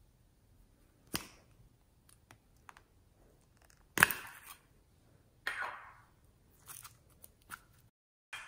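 A small plastic slime container is handled and its lid pulled off: a few light clicks, then a sharp plastic snap about four seconds in. A crackling rustle follows as the slime is worked out of the cup.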